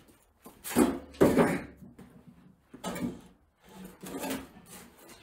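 A run of irregular knocks and clunks of objects being handled and set down, about six in all, the loudest a pair about a second in.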